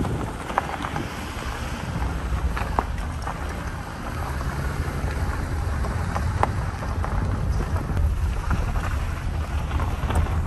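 Wind buffeting the microphone over the steady low rumble of a vehicle driving on a gravel road, with scattered small clicks and ticks.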